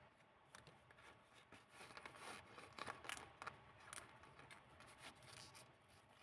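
Old book-paper pages of a handmade junk journal being handled and turned: faint rustling and crinkling with small clicks, busiest in the middle.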